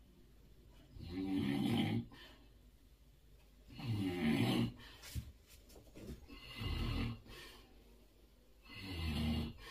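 A man snoring in his sleep: four long snores, about two and a half seconds apart.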